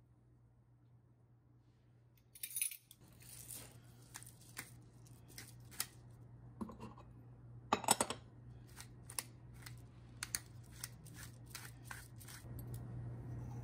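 Small kitchen containers and utensils being handled on a countertop: scattered light clicks and clinks, a brief rustle about two and a half seconds in, and a louder clatter about eight seconds in.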